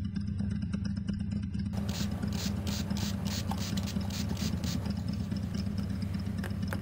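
Soft, quick tapping and rustling as a cloth polishing pad is wetted from a squeeze bottle and handled, over a steady low hum.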